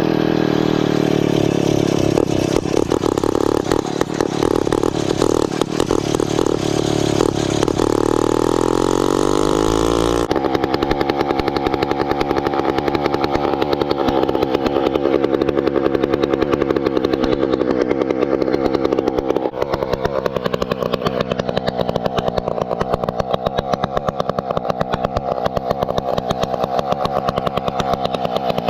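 Motorized bicycle's small engine running just after starting from cold, first run after sitting about two months. The revs wander and climb for the first ten seconds or so, then it settles into a steady, fast-firing run.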